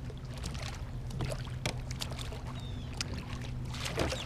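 Electric trolling motor running at low thrust with a steady low hum, with water splashing and small knocks from the boat and oars.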